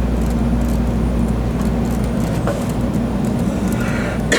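Steady low running rumble of an N700 series Shinkansen, heard inside the passenger car.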